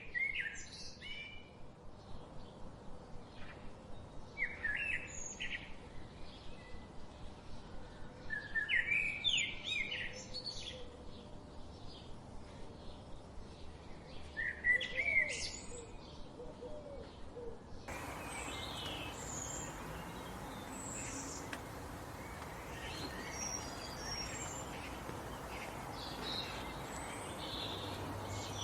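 Songbirds singing: short warbled phrases repeated every few seconds, then, after a cut about two-thirds of the way in, a busier background of scattered high chirps over a steady hiss.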